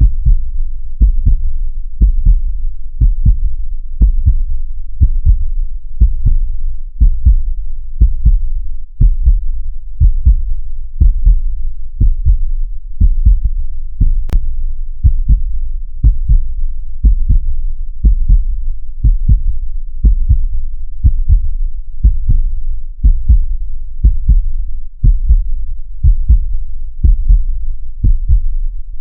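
Heartbeat: a steady run of deep double thumps (lub-dub), about one beat a second. A single sharp click sounds about fourteen seconds in.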